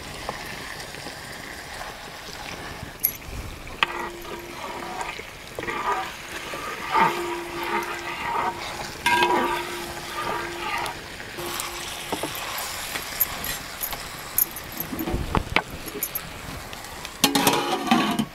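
Rice and chicken boiling in a large metal biryani pot being stirred, the spoon scraping and clinking against the metal, with a cluster of clatters near the end as the lid goes onto the pot.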